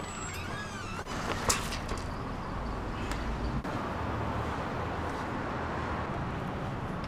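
Street traffic ambience: a steady rumble of passing vehicles. A few short squeaks come in the first second, and a single sharp knock about a second and a half in.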